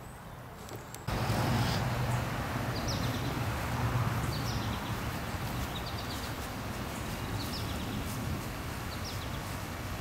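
Outdoor ambience that jumps in about a second in: a steady low rumbling background noise, with a bird repeating a short, quick chirped phrase about once a second.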